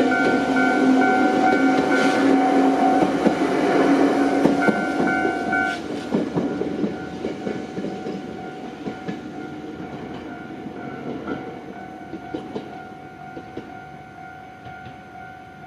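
Gakunan Railway electric train passing a level crossing, loud for the first several seconds and then fading away, with wheel clicks over the rail joints. The crossing's warning bell rings steadily.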